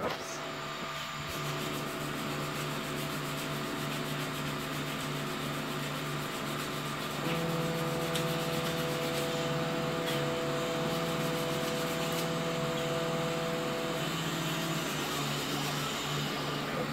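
Small computer-controlled benchtop milling machine running as it mills a slingshot frame, a steady machine whir. A higher, steadier tone joins about seven seconds in and stops about seven seconds later.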